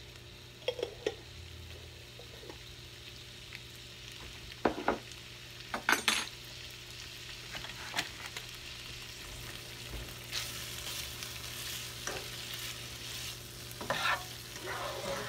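Sliced sausage, sun-dried tomatoes and garlic sizzling in a nonstick frying pan, with a few sharp knocks in the first half. The sizzle grows louder about two-thirds in, and near the end a spatula stirs and scrapes the food around the pan.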